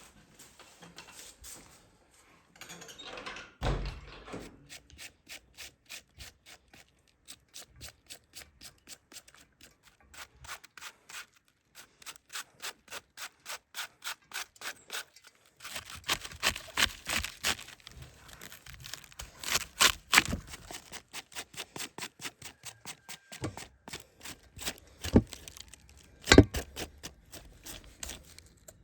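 Steady rhythmic rasping strokes, about two or three a second, of something rubbed or scraped back and forth, with a couple of single thumps.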